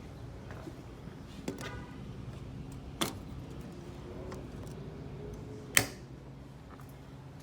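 Footsteps on a hard floor over a steady low hum, with two sharp knocks, one about three seconds in and a louder one near six seconds in.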